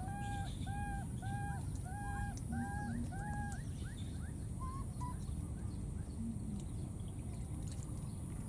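A run of six short, clear, even-pitched animal calls, a little under two a second, stopping about three and a half seconds in and followed by a few faint chirps, over a steady low outdoor rumble.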